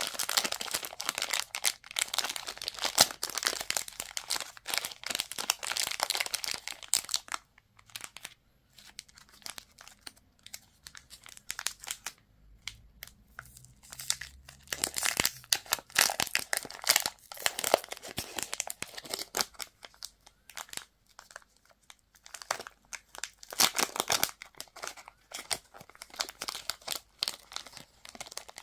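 Candy wrappers being crinkled and torn open by hand, in dense bursts of crackling for the first several seconds, then sparser handling, with more bursts of crinkling about halfway through and again near the end.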